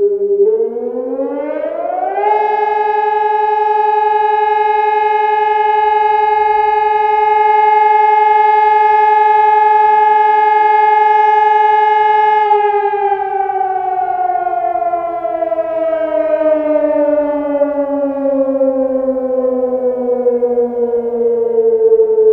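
Sonnenburg SES 1200 electronic civil-defence siren sounding the German "Feueralarm" fire-alarm test signal. Its tone rises over about two seconds, holds steady for about ten seconds, then slowly falls away.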